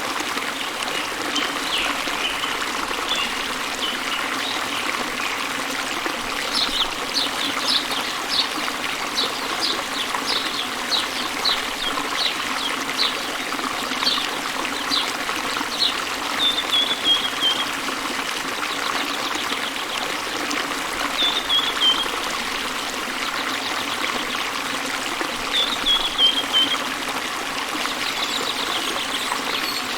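Small waterfall spilling into a gently flowing river: a steady rush of water. Birds sing over it, first a run of short high notes about two a second, then three short falling phrases.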